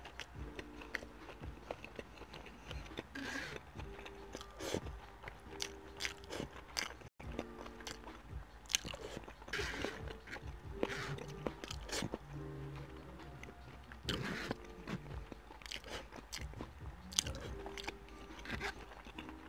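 Close-miked chewing and crunching of food, mouthfuls of roasted Brussels sprouts and greens, over quiet background music.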